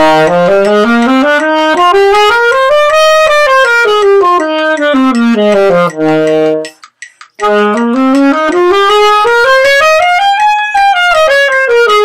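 Solo saxophone playing scales. It steps quickly up about two octaves and straight back down, pauses briefly for a breath about seven seconds in, then runs up and down again starting a little higher.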